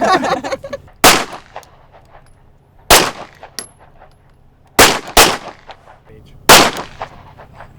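Pistol fired in slow, deliberate shots: five sharp reports, about two seconds apart at first, then a quick pair and one more, each with a short echo.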